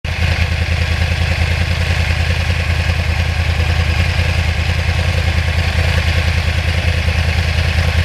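The crossplane inline-four engine of a 2009 Yamaha R1 motorcycle running steadily, with a deep, fast, even pulse and no revving.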